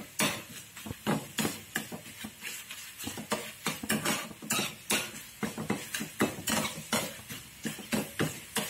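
Metal slotted spatula scraping and clinking against a metal kadai, stirring a soft tomato-and-onion mixture. The scrapes come in an uneven run of about two to three a second.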